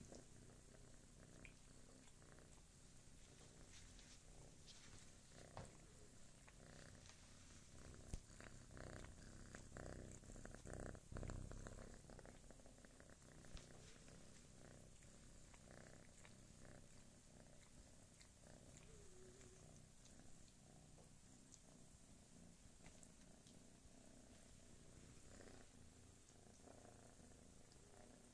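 Domestic cat purring, a faint steady low rumble that grows louder for a few seconds about ten seconds in. A single soft knock sounds about eight seconds in.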